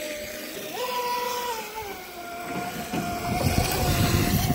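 Rage Black Marlin electric RC speedboat running on the water: a high motor whine that jumps up in pitch about a second in as the throttle opens, eases back down and then holds steady, with a louder low rushing noise in the second half.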